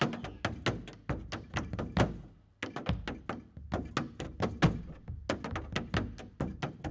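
Malambo zapateo: a dancer's boots striking the stage floor in a fast run of sharp heel and sole strikes, several a second, with a short break about two and a half seconds in.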